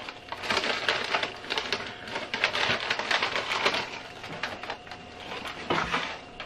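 Brown paper takeout bag rustling and crinkling as it is handled, a dense run of small crackles.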